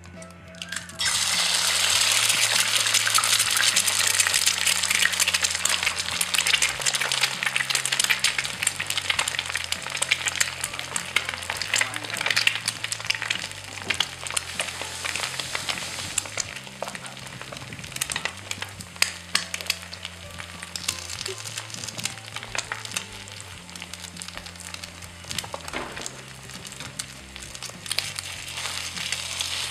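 A dense crackling hiss starts abruptly about a second in, over background music with slow chord changes.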